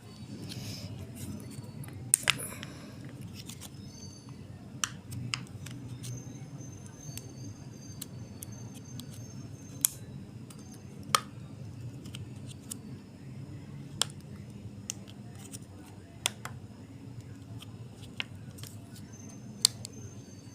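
Clay and its plastic packaging being handled: sharp clicks and taps at irregular intervals over a steady low hum.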